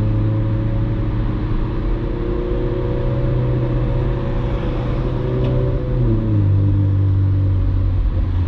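Ferrari 458 Spider's naturally aspirated V8 running steadily under light load, its pitch creeping slowly upward, then stepping down about six seconds in at a gear change. Road and wind noise run underneath.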